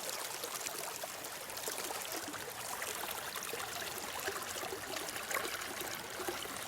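Steady falling rain: an even hiss with scattered ticks of drops.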